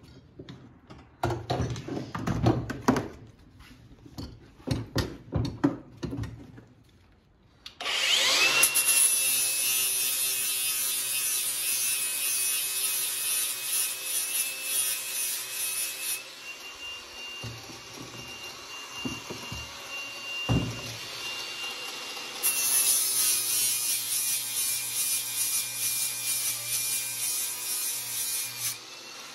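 Handheld angle grinder with a flap wheel spinning up with a rising whine about eight seconds in, then grinding steel with a steady high whine and hiss. It is taking a little more metal off the end of a hydraulic top link so that it fits snugly. Before it starts there are clunks and scrapes of the part being handled, and the grinding lightens for several seconds midway.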